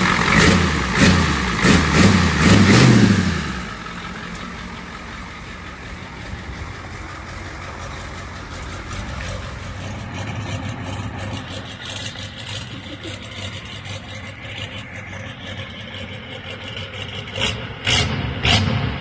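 Ford 7.3 IDI V8 diesel engine revving up and down for about three and a half seconds, then dropping to a steady idle. A few sharp clicks come near the end.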